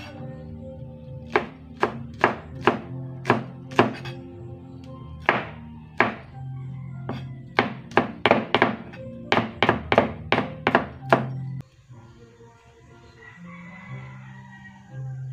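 Kitchen knife chopping green chillies on a cutting board: about twenty sharp knocks at an uneven pace, stopping shortly before the end, over background music.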